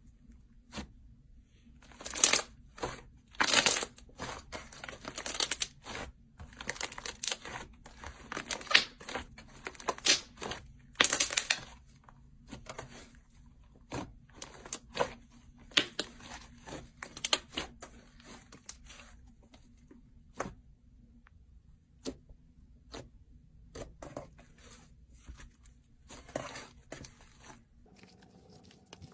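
Slime being squeezed and stretched close to the microphone, giving irregular crackles and pops in clusters.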